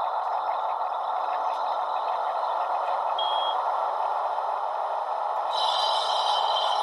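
Hornby HM7000 Bluetooth sound decoder playing a diesel engine sound, an HST power car profile, through a model locomotive's small speaker: the engine running steadily. A brief high beep sounds about three seconds in, and a high hiss joins about five and a half seconds in.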